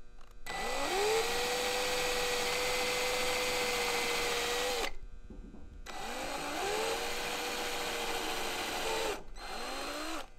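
Electric drill boring pilot holes into an eastern red cedar board for screw hooks: three runs, each winding up in pitch and then running steady. The first run is about four seconds long, and the last starts near the end.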